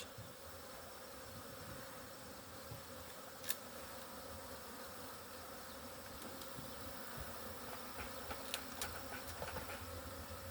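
Honey bees buzzing steadily around an open hive, a faint constant hum, with a few faint clicks partway through.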